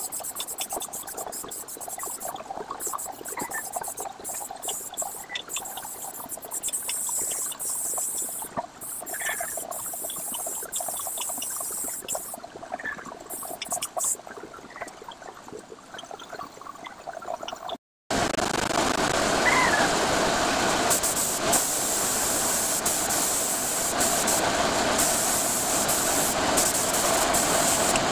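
Airbrush hissing in short, uneven bursts while paint is sprayed. After a sudden break about two-thirds of the way in, a louder, steady rushing of compressed-air spray equipment takes over.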